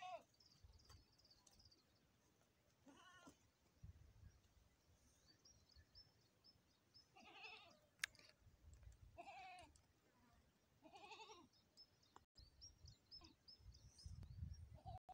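A goat bleating, about five separate wavering calls a couple of seconds apart.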